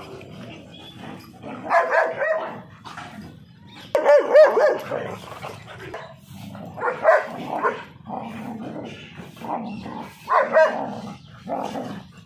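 Dogs play-fighting, with bursts of barks and yelps. The loudest is a run of high yelps about four seconds in, and shorter bursts come about every three seconds.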